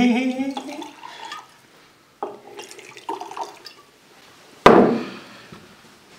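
Liquid poured from a glass bottle into small glass jars, then glasses handled on a wooden table, with a sudden loud knock a little over four and a half seconds in.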